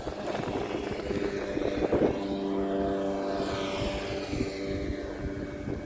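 Engine of a small motor craft speeding past, a steady drone that is clearest from about two seconds in until near the end, over low wind rumble on the microphone.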